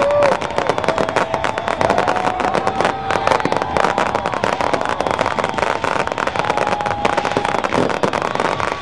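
Fireworks crackling and popping in a dense, continuous barrage, with long drawn-out whoops from the crowd over it.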